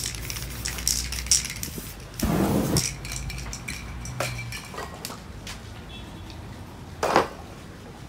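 Aerosol spray-paint can rattling, its mixing ball giving a few sharp clinks, then a short burst of spray about two seconds in and another brief burst near the end.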